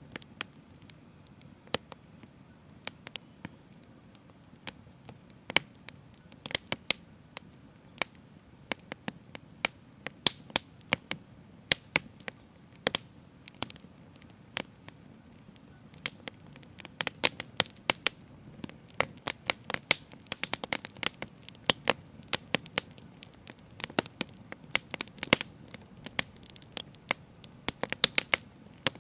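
Open fire crackling, with many irregular sharp pops over a soft low rumble of flames; the pops come thicker around the middle and again near the end.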